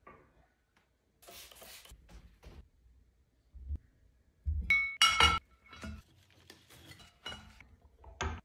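Decor pieces set down on a mirrored glass coffee table: a vase and marble tray clinking against the glass. There are two loud, sharp clinks with a ringing tail about five seconds in, then lighter clicks and taps.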